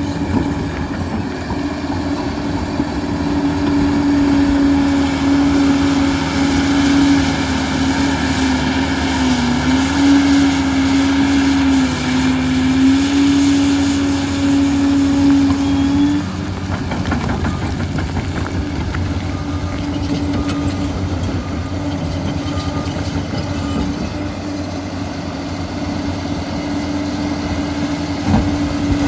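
Liebherr 746 crawler dozer working: a steady engine-and-drive drone with a whine on top. The whine's pitch sags slightly a couple of times as the machine takes load, fades out about halfway through, and returns near the end.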